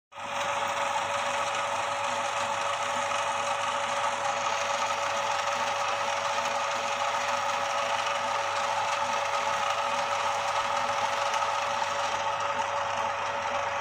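MKS-140 electric noodle-making machine running steadily, its motor turning the cutting rollers as dough is pushed through and cut into noodle strands.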